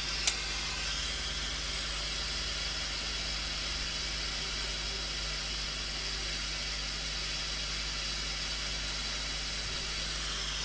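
Steady hiss with a low electrical hum underneath and one faint click just after the start; no soldering sound stands out.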